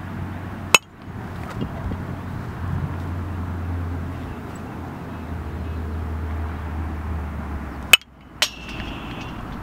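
Sharp single cracks of baseball batting practice: one about a second in, and near the end a bat striking a pitched ball, followed half a second later by a second, ringing knock. A low steady wind rumble runs underneath.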